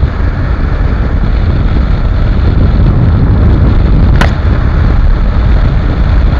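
Wind rushing over the camera microphone on top of the Bajaj Pulsar NS125's single-cylinder 125 cc engine, held at full throttle at about 110 km/h and still gaining speed slowly near its top speed. There is a single sharp click about four seconds in.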